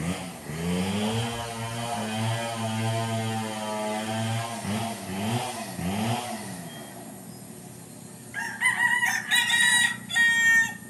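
A gamecock crows loudly near the end, a multi-part crow ending in a long held note. Before it, a small engine runs underneath, its pitch dipping and rising several times.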